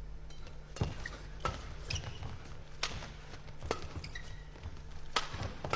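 Badminton doubles rally: about seven sharp racket strikes on the shuttlecock, half a second to a second apart, over a low steady arena hum, with a few short squeaks of shoes on the court.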